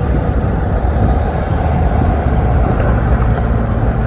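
Steady low rumble of a moving vehicle, like road noise heard inside a car.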